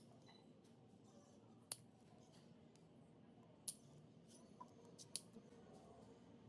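Near silence with a few faint, sharp clicks, one every second or two.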